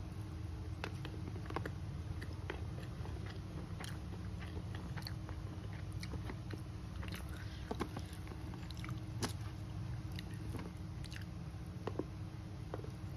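Mouth chewing rice and duck meat eaten by hand: irregular sharp, wet clicks and crunches of chewing, over a steady low hum.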